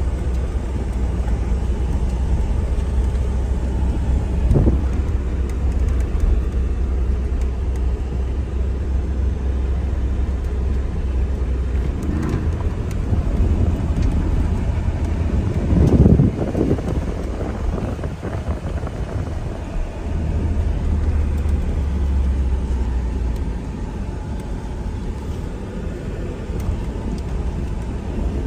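Inside the cab of a Ford F-150 pickup crawling along a dirt off-road trail: a steady low rumble of engine and tyres, broken by a few bumps and knocks, the loudest about sixteen seconds in.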